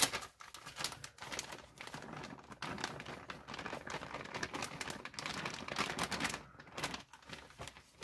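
Peas poured from a plastic bag into a plastic bowl: the bag crinkling and the peas clicking and rattling as they drop in a quick run of small ticks.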